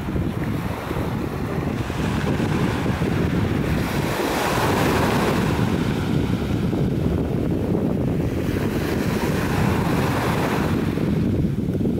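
Small waves breaking and washing up a sandy beach, the hiss of the surf swelling a couple of times, over a steady low rumble of wind on the microphone.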